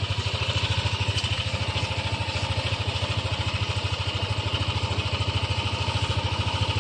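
A small engine idling steadily, with an even, rapid pulse of about a dozen beats a second.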